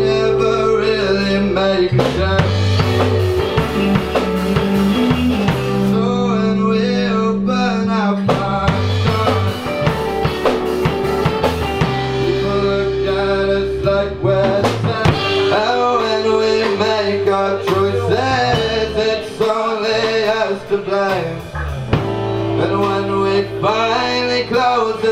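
Indie rock band playing a song: a male lead singer over acoustic and electric guitars, bass guitar and a drum kit.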